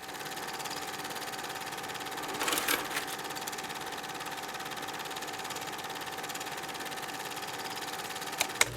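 A small machine running with a fast, even clatter over a steady hum, starting and stopping abruptly, with a few short clicks about two and a half seconds in and near the end.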